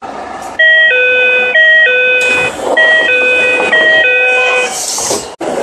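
Tsukuba Express train door chime: a two-note ding-dong played four times, in two pairs, over a steady hiss, warning that the doors are moving. Near the end a brief rushing hiss, then the sound cuts off abruptly.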